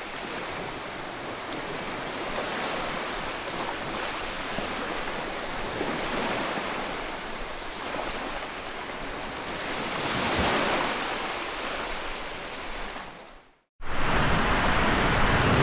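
Steady rushing of water during heavy flooding. It drops out briefly about thirteen and a half seconds in, then comes back louder.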